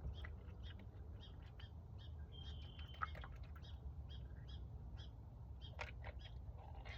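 Faint bird chirps, short high calls repeating several times a second, over a steady low rumble, with a brief held whistle-like tone and a sharp click about three seconds in.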